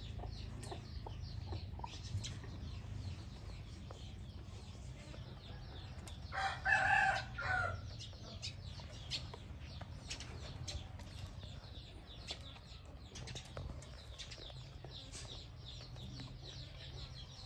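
Chickens pecking feed from metal troughs, a steady patter of short sharp clicks. A rooster crows once, loudly, about six seconds in.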